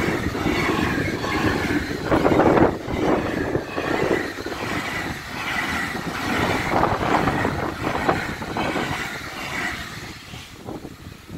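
Freight train of empty stake wagons rolling past, a steady rumble with repeated wheel knocks over the rail joints. The noise fades away near the end as the last wagon goes by.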